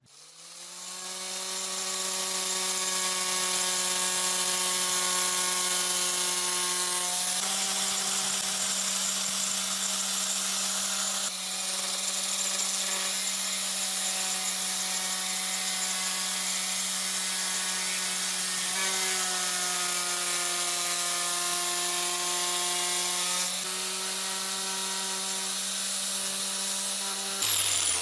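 Electric power tool motor starting from silence and spinning up over about two seconds, then running steadily with a constant whine over a hiss. Its tone shifts slightly a few times.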